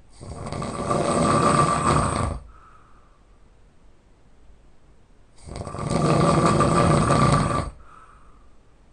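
A person snoring loudly in heavy sleep: two long snores about five seconds apart, each swelling over about two seconds and then cutting off, with a faint short breath sound after each.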